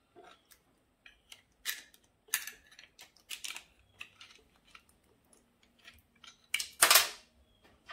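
Metal engine parts and hand tools clinking and knocking as they are handled during an engine teardown: a string of small clicks, with a louder clank about seven seconds in.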